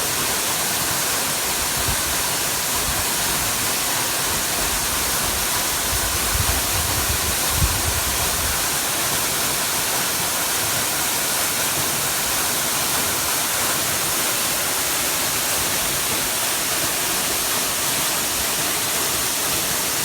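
Steady rush of the Hossawa Falls waterfall, with a few low rumbles about six to eight seconds in.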